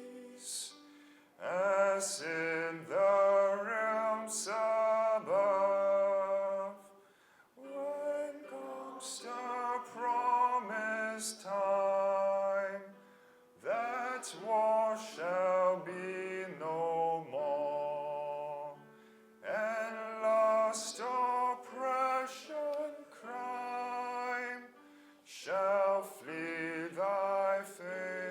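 A hymn sung by many voices in phrases, with short pauses for breath between lines.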